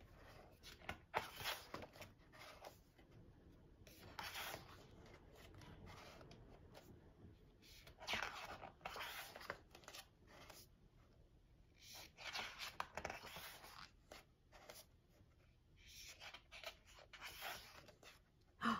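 Pages of a large photobook being turned and smoothed by hand: about five soft paper rustles and swishes, a few seconds apart.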